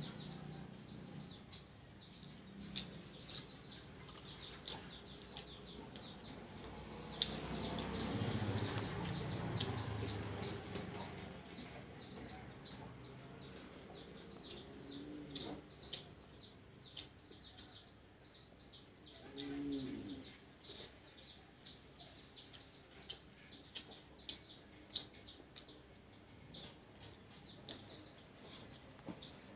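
Birds chirping in the background: many short, high chirps repeated all through, with two brief lower calls about 15 and 20 seconds in. A louder noisy stretch comes about 7 to 11 seconds in.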